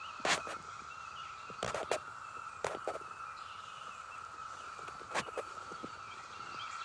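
Chorus of Brood X 17-year periodical cicadas as a steady, even hum. Birds chirp faintly over it, and there are several sharp clicks.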